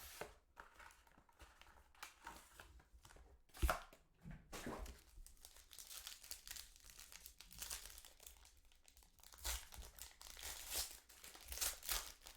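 Plastic wrapping being torn and crinkled by hand as a sealed box of trading cards is opened, with a sharp snap about four seconds in.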